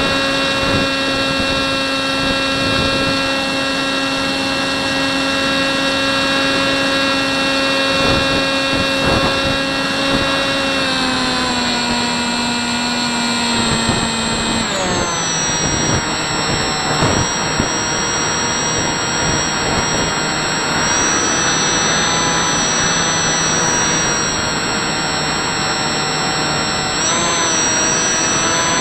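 Electric motor and propeller of a Hubsan Spyhawk model plane whining steadily in flight, with wind rush, heard from a camera mounted on the plane. The whine drops in pitch in two steps a little before the middle as the throttle is eased back, then holds steady at the lower pitch.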